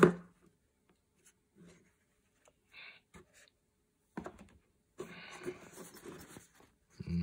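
Handling sounds from unpacking a box: a sharp knock as the lid comes off a small cardboard gift box, then scattered soft taps, and near the end a few seconds of soft rustling of a fabric pouch and cardboard.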